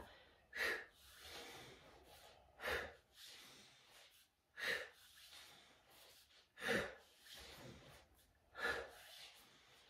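A woman breathing out forcefully in a steady rhythm, five sharp exhales about two seconds apart, each timed to drawing one knee into the chest, with softer inhales between them.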